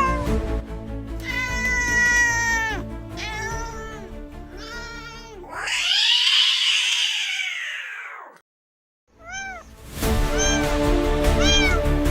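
Kittens meowing over background music: several drawn-out meows falling in pitch, then a longer harsh cry that rises and falls. After a brief break come short, clipped calls near the end.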